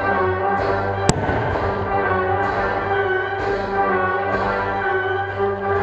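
Orchestral music with prominent brass playing held chords, with one sharp firework bang about a second in.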